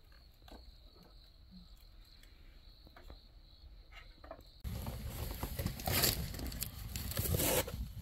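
Crickets chirring steadily in the background, with a few soft clicks. About four and a half seconds in, loud close-up rustling and crackling starts suddenly and runs on.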